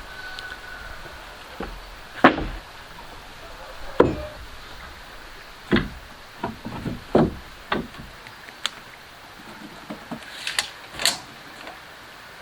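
About ten irregular knocks and thuds of wood against wood, spaced unevenly, the sharpest two coming about two and four seconds in.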